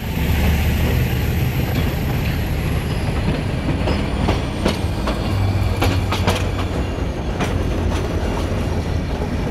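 Nilgiri Mountain Railway coach rolling slowly into a station, heard from on board: a steady low rumble with irregular sharp clacks from the wheels over rail joints. A faint high squeal glides slowly down in pitch throughout.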